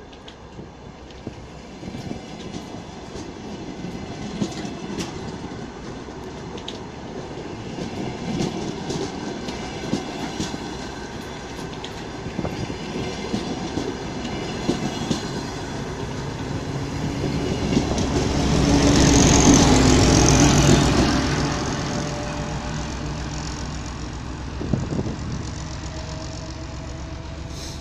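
Diesel passenger train accelerating past close by: coach wheels clicking over rail joints, growing steadily louder. About two-thirds of the way in, the 2M62U locomotive section's two-stroke diesel engine passes with a loud low drone, then fades as it pulls away.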